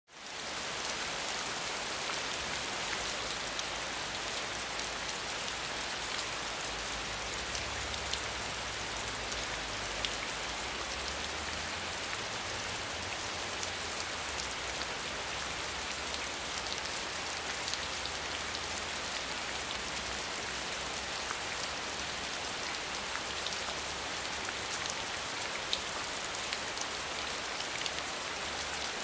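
Steady rain falling on the ground: a constant even hiss with scattered individual drops ticking through it, fading in over the first second.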